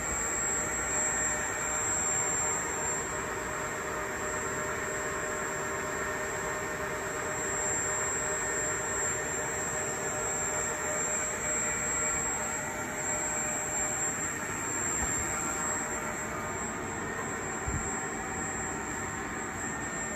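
Steady machinery whir and hum with a constant high-pitched whine, unchanging throughout.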